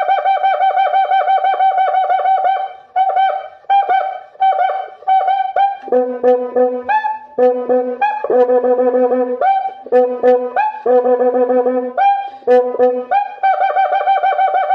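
Homemade cuíca made from a banjo rim, played by rubbing its inner stick: squeaky pitched strokes in a rhythm, jumping between a low, a middle and a high note. The first few seconds are a fast run of repeated strokes on the high note.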